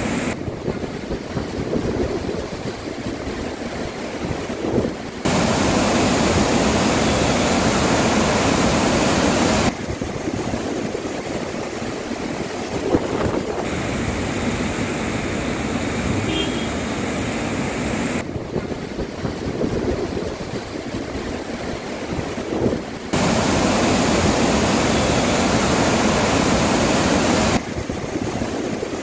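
Rushing floodwater of the swollen Narmada river: a steady noise of fast-moving water. Several stretches are louder and hissier, and they cut in and out abruptly.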